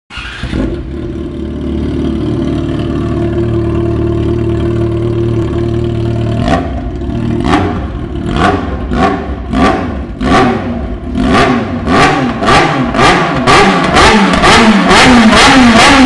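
Yamaha XJ6 inline-four motorcycle engine on an open exhaust pipe, idling steadily at first. About six seconds in it starts a series of sharp throttle blips, each rev dropping straight back, and the blips come faster toward the end.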